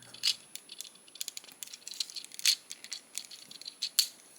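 Plastic Transformers action figure being handled and transformed: a string of small plastic clicks and rattles as its hinges and joints are moved and fitted, with sharper snaps near the start, about two and a half seconds in and about four seconds in.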